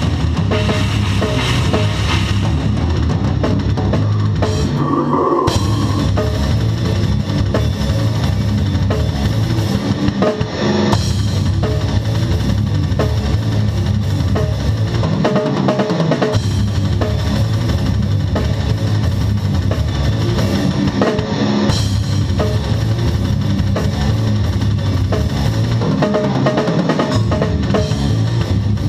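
Technical brutal death metal played live by a full band, with the drum kit up close: bass drum, snare and cymbals dominate over downtuned guitars and bass. The playing is dense and continuous, with a few brief breaks in the low end where the riff changes.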